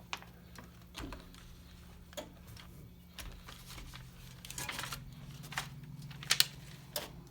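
Scattered light clicks and taps of small objects being handled, with two sharp clicks about six seconds in, over a steady low hum.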